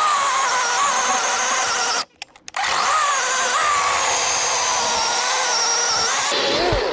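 DeWalt 20V cordless electric chainsaw with a 12-inch bar running and cutting wood, in two bursts with a short pause about two seconds in. Its motor whine wavers in pitch as the chain takes load.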